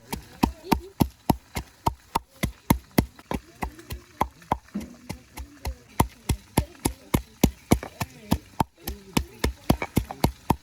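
Garlic being crushed by steady pounding, sharp knocks about four a second.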